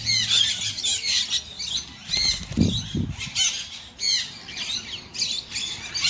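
Many small aviary birds chirping and squawking in short, high calls that overlap and come every second or so, with two low thumps about halfway through.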